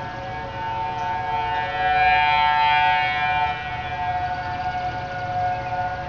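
Several outdoor tornado warning sirens, including a Federal Signal Thunderbolt 1000T and 2001-SRN and an ASC T-128, sounding the steady alert tone together at slightly different pitches during a monthly siren test. The combined wail swells loudest about two seconds in, then eases back.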